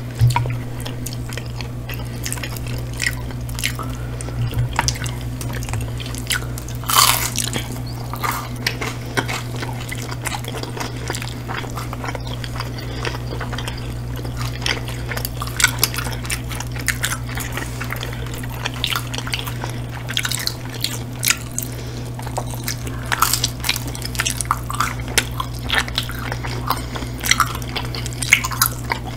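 Close-miked wet chewing, lip smacks and bites of two people eating sauce-dipped hot chicken wings, a steady stream of short sticky clicks with a louder one about seven seconds in, over a steady low hum.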